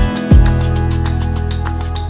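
Background music: held chords over a fast, steady ticking beat, with a deep booming note that drops in pitch about a third of a second in.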